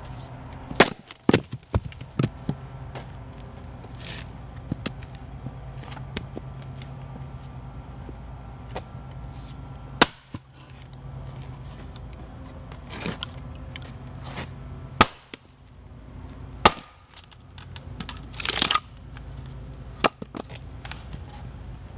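Splitting maul chopping into logs on a chopping block. There are sharp wooden chops and cracks at uneven intervals, several close together in the first couple of seconds. Late on, a longer splintering crack comes as a log tears apart.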